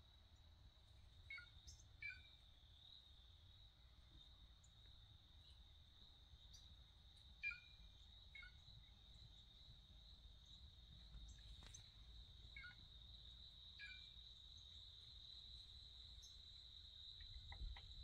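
Faint, steady, high-pitched insect drone with short bird chirps over it, about six in all, coming in pairs and each falling in pitch.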